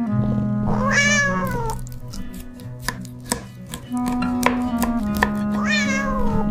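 A cat meowing twice, each meow a drawn-out call that rises and then falls, about five seconds apart, over background music.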